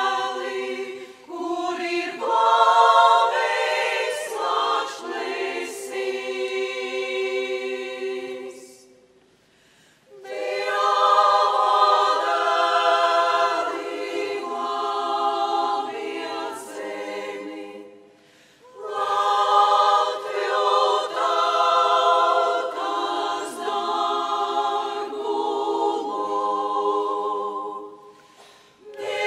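Women's choir singing in long phrases, breaking off briefly about nine, eighteen and twenty-eight seconds in.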